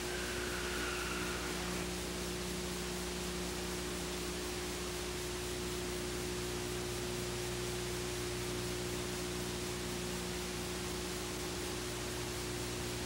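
Steady hiss with a low electrical hum underneath: the noise floor of an old analogue videotape recording, with no other sound standing out.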